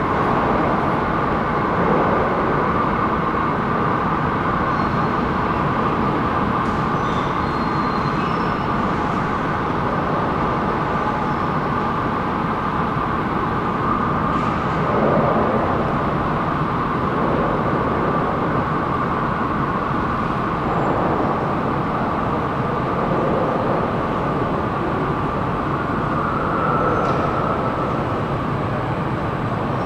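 Steady drone of an underground metro station, a constant rumble with a high whine running through it and a few faint ticks.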